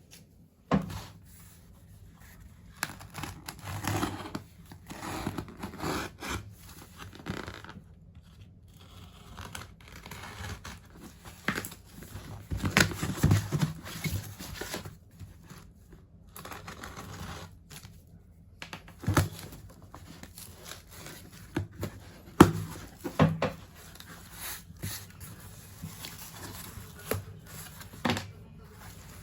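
Diecast model car packaging being opened and handled: irregular tearing, crinkling and rustling of cardboard and plastic, with scattered sharp clicks and knocks.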